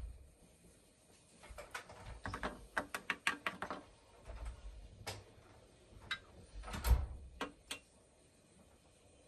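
Small clicks and taps of hand work with metal tweezers, small plastic bags and a plastic model house over a plastic tray: a quick run of about ten ticks, then a few scattered clicks, with the loudest knock about seven seconds in.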